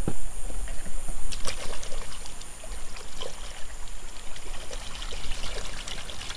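Water splashing and sloshing as a hand swishes a small plastic toy dinosaur back and forth in a shallow river, in many short irregular splashes over the steady noise of the flowing stream.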